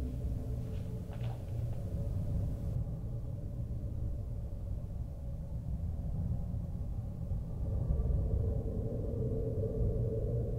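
Low, steady rumble of background room tone with a faint held hum that swells slightly near the end.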